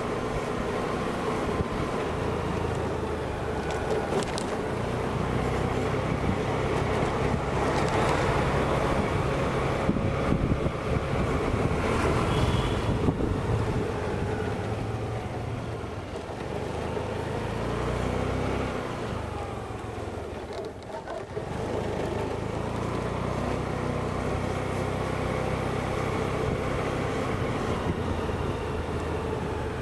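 Honda Dio scooter's single-cylinder engine running under way, its pitch rising and falling with speed, with wind on the microphone. It eases off briefly about two-thirds of the way through.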